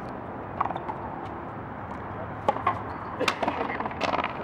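Frontón rally: rackets striking the ball and the ball smacking off the court wall. Several sharp cracks come at uneven intervals through the rally.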